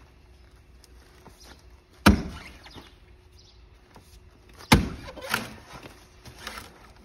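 Sledgehammer striking a cut round of Washingtonia filifera palm trunk. Two heavy blows land about two and a half seconds apart, each with a short ring, the second followed by a lighter knock.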